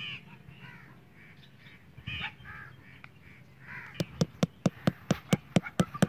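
Birds calling, then from about four seconds in a quick, even series of hammer strikes, about four or five a second, tapping a thin wooden stake into hard dirt.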